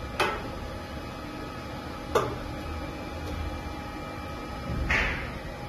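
Hot-air heaters and fans of a BGA rework station running steadily during a heating profile, a steady hum with faint whining tones. Three short knocks sound over it, about two seconds apart, the last a little longer.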